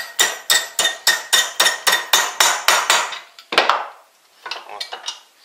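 Hammer blows on a thin steel rod clamped in a bench vise, bending it into an L: quick metal-on-metal strikes about four a second for three seconds, one harder final blow, then a few light taps near the end.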